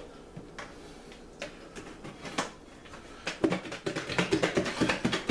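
Plastic margarine tubs being handled on a kitchen counter: a few separate knocks, then a quick run of rapid clatter and rattling over the last two seconds.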